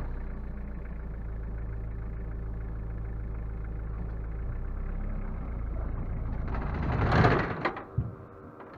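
A vehicle engine running steadily at low pitch. About seven seconds in a louder rushing swell comes, then the sound drops away.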